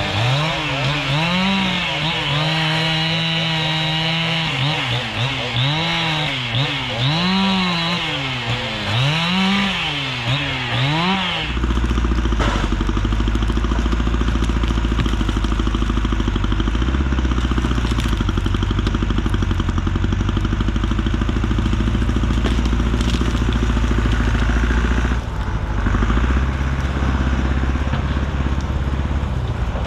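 A chainsaw revving up and down through cuts for about eleven seconds, its pitch rising and falling with each squeeze of the throttle and held high briefly. Then a large engine suddenly takes over, running steadily with a deep rumble.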